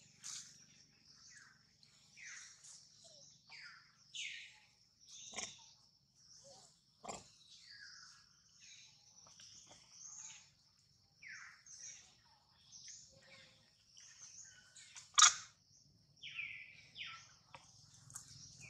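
Many short high chirps, one after another, each falling in pitch, over a steady high thin tone, with a few sharp clicks; the loudest click comes about fifteen seconds in.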